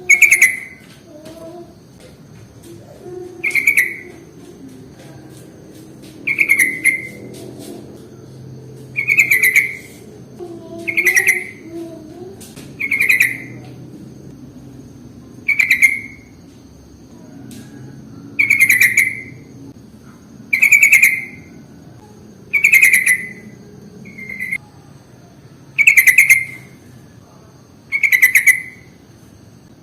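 Yellow-vented bulbul (trucukan) calling: a short, loud chattering phrase of rapid notes, repeated about every two to three seconds.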